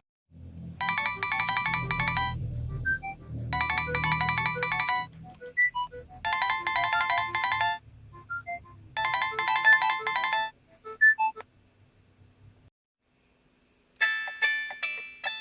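Nokia 5140 mobile phone playing a ringtone: four phrases of rapid high beeping notes, about two and a half seconds apart, with scattered single notes between them and a low rumble under the first few seconds. It stops, and about a second and a half later a different ringtone starts near the end.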